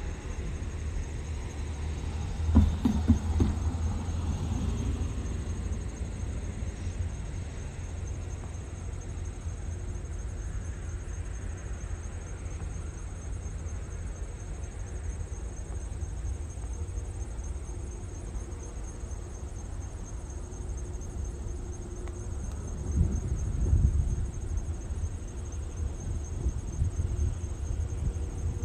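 Insects chirping steadily in high pulsing tones over the low rumble of a distant diesel switcher locomotive, the GP9R, working slowly. The rumble swells louder twice, a few seconds in and again near the end.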